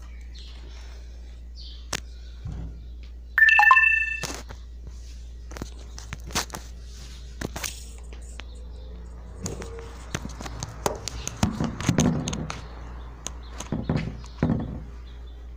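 Phone being handled close to its microphone: scattered taps, knocks and rubbing as fingers move over it. About three and a half seconds in, a brief loud high ringing tone, the loudest sound here.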